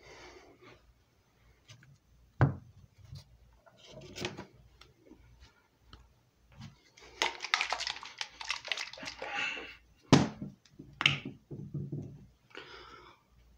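Handling noises from the plastic parts and pads of a disc repair machine: scattered knocks and clicks, a sharp thump about two and a half seconds in and another just after ten seconds, and a dense patch of rapid clicking and rustling from about seven to ten seconds in. The machine itself is not running.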